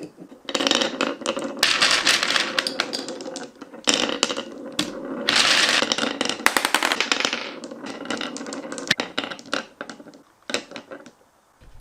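Glass marbles rolling and clattering down marble-run slopes, many at once, in a dense rattle of clicks over a steady rolling rumble. It thins out to a few last clicks near the end.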